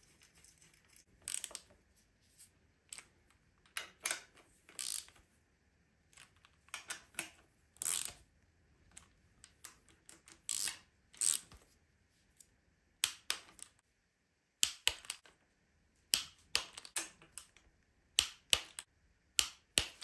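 Hand ratchet with a socket on an extension clicking in repeated short bursts as the water pump bolts are run down on a BMW S38 engine block.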